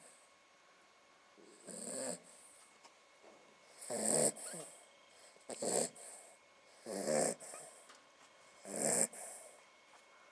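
West Highland white terrier snoring in its sleep: five snoring breaths, each about half a second long, coming every one and a half to two seconds.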